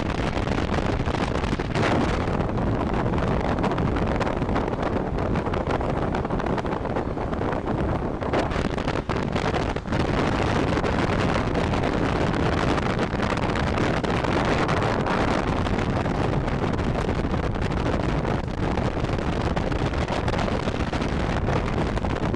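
Steady, loud wind rushing over the microphone on a moving boat, with the boat's running noise underneath. It comes in suddenly and holds even throughout.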